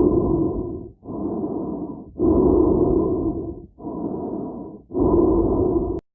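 A person breathing slowly in and out inside a helmet: about five breaths of roughly a second each, muffled, with louder and softer breaths alternating. The sound cuts out abruptly for a moment near the end.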